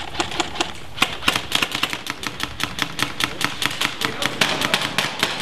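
Airsoft guns firing: a fast, uneven run of sharp clacking shots, several a second, as from more than one gun.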